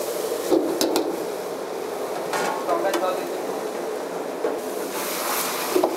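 Metal ladle scraping and clanking in a wok as chicken and vegetables are stir-fried, with steady sizzling. The sizzle swells to a louder hiss near the end.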